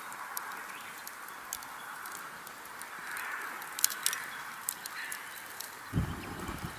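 Thick stew simmering in a pot over a campfire: a steady bubbling hiss with scattered sharp crackles from the fire. A few low knocks come near the end.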